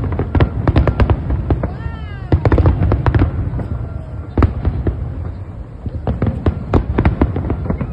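Fireworks going off: a rapid, irregular run of sharp bangs and crackles, with a short pitched glide about two seconds in.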